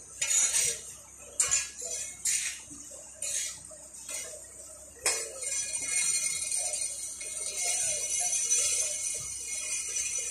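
Metal scraper or chisel scraping barnacles off a boat hull in short, sharp strokes about once a second, with metallic clinks. From about five seconds in, a steady high hiss takes over.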